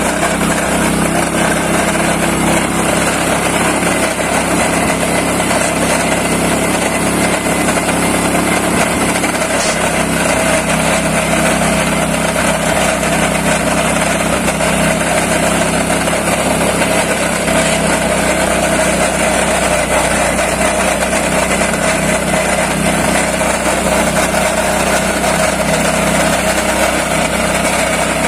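Motor-driven wet coffee mill (huller) running steadily and loudly, an even machine sound with no change in speed.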